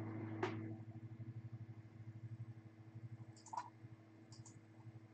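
A few faint, sharp clicks over a low, quickly pulsing hum: one click about half a second in, another about three and a half seconds in, and a close pair near the end.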